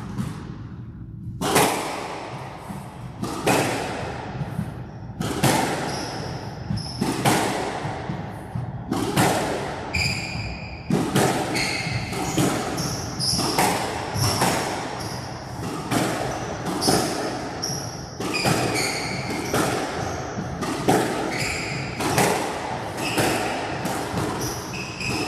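A long squash rally: the ball struck by racquets and hitting the court walls about once a second, with shoes squeaking on the court floor between the hits.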